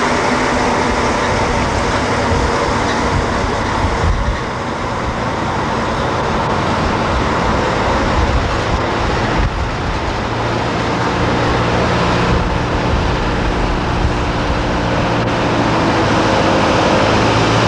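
Vehicle engines running, a steady noisy rumble of heavy traffic. A low engine drone comes through more clearly about two-thirds of the way through.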